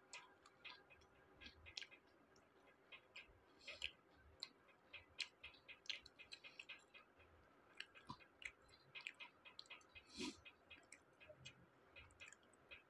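A person chewing crunchy fried onion pakoda (onion fritters) with the mouth closed to a close microphone: a quiet, irregular run of small crunches and mouth clicks.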